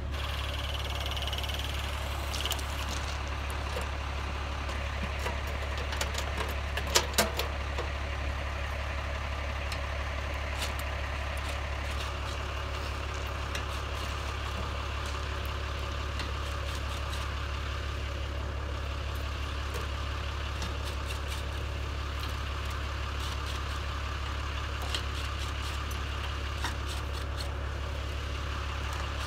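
Steady low drone of an idling engine, with a few sharp metallic clicks about seven seconds in from tools and connectors being handled at the transformer.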